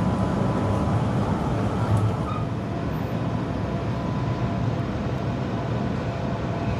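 Melbourne tram running, heard from inside the passenger cabin: a steady rumble of wheels on the rails with a faint steady high tone over it.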